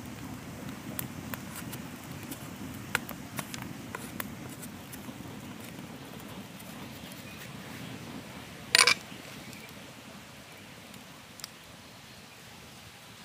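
Small wood fire being fed with dry sticks: scattered crackles and twig snaps, with one sharp, loud crack just under nine seconds in, over a steady low rush.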